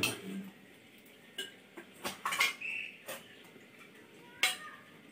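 A few scattered clinks of stainless-steel utensils and dishes knocking together, with a brief high-pitched squeak near the middle.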